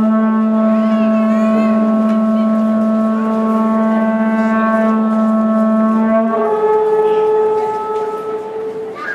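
Conch-shell trumpet (horagai) blown as one long, steady low note. About six seconds in it breaks upward to a higher note, which fades near the end.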